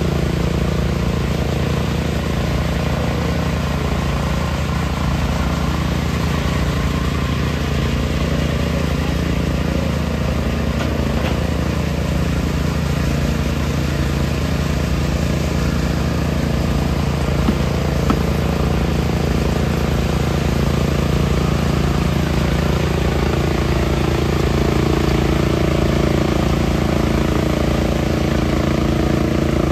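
Heavy diesel engine of the concrete pumping equipment running steadily, with a few faint clicks about 11 and 18 seconds in and a mid-pitched tone growing stronger near the end.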